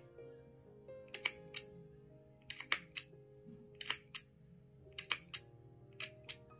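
Small scissors snipping through the yarn loops of a pom-pom, a sharp click with each cut, about a dozen cuts in quick pairs and clusters. Soft background music plays underneath.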